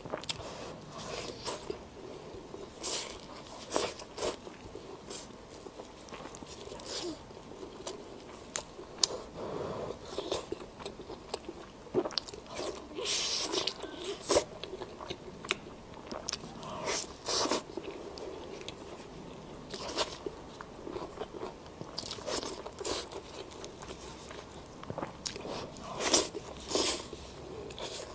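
Close-up eating sounds: irregular bites and chewing of roast poultry and crisp lettuce leaves, with sharp crunches scattered throughout.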